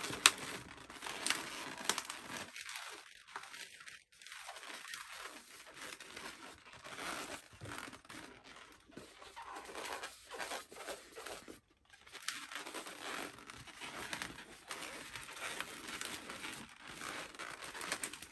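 Latex modelling balloon (twisting balloon) being handled and twisted into a multi-bubble ball: rubber rubbing and scrunching against rubber in a steady crinkly scrape, with a few sharper clicks in the first two seconds.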